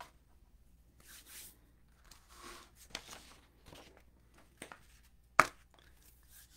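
Handling noise from someone shifting about at a desk: scattered faint rustles and small clicks, with one sharp knock about five and a half seconds in.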